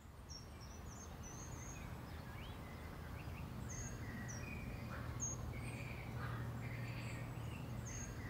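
Several small birds chirping in short, high calls over a steady low hum of outdoor ambience, fading in over the first couple of seconds.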